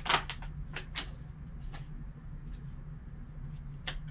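Trading card pack being opened and the cards handled: a few sharp clicks and rustles of packaging and card stock, over a steady low hum.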